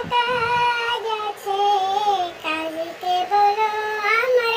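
A single high, child-like voice singing a slow devotional melody in long held notes that glide between pitches, with no audible accompaniment.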